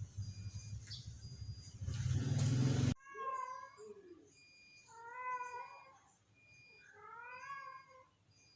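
A low rumbling noise grows louder over the first three seconds and cuts off abruptly. Then a cat meows three times, each call short and bending in pitch.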